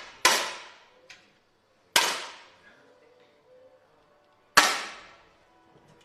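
10 m air rifles fired one after another: three sharp shots about two seconds apart, each fading off over about half a second.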